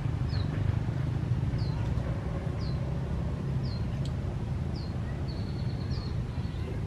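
A steady low hum like a distant engine, with a bird repeating a short, slightly falling chirp about once a second.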